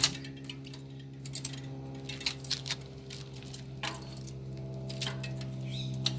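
Light metallic clicks and clinks of a wheel with its brake disc being handled and refitted between the hydraulic brake caliper pads, over a steady low hum.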